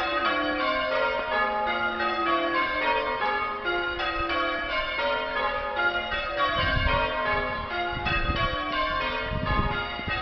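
Church bells being change rung: a steady, continuous run of overlapping bell strokes, each ringing on into the next. Some low thuds sound under the bells in the second half.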